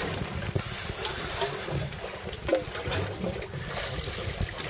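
Wind buffeting the microphone and water sounds aboard a boat at sea, as a steady irregular low rumble. A brief high hiss comes about half a second in and lasts about a second and a half.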